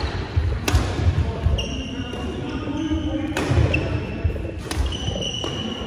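Badminton rally: rackets hitting the shuttlecock with sharp cracks about three times, shoes squeaking on the wooden hall floor, and footsteps thudding.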